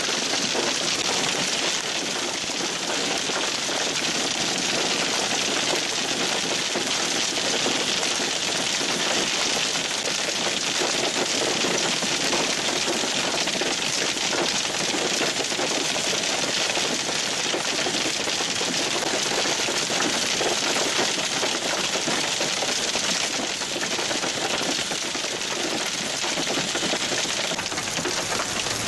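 Heavy hail, stones about an inch across, pelting the ground and nearby surfaces: a steady, dense clatter of countless small impacts over a hiss.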